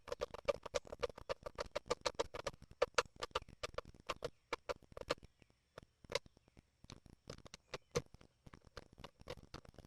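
Rapid run of small sharp clicks, several a second, from hands and tools working on the McCulloch 3516 chainsaw's parts during reassembly, with brief pauses about four and six seconds in.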